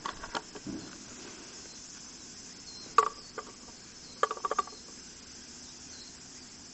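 A few sharp knocks and clicks, with a quick run of about five taps about four and a half seconds in, over a faint steady chirring of insects, likely crickets.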